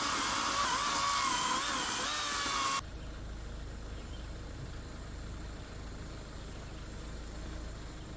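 A small engine on power equipment running hard, its pitch wavering as the load changes, stops abruptly about three seconds in. After that only a quieter low rumble remains.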